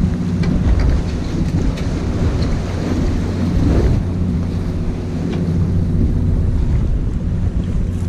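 Fishing boat's machinery running with a steady low hum, under a constant wash of wind on the microphone and the sea around the hull.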